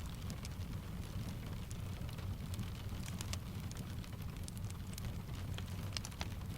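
Steady rain layered with a crackling wood fire: an even, low rumbling wash of rain under irregular sharp crackles.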